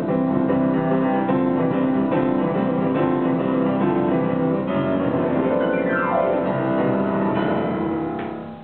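Grand piano played solo: full chords and running notes, with a quick descending run about six seconds in. The sound dies away near the end.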